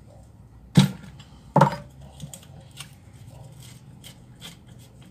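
Steel open-end wrench clinking and knocking on the nut and flange that hold a flap disc on a drill's grinder head as the nut is worked: two sharp knocks under a second apart about a second in, then lighter clicks of metal on metal.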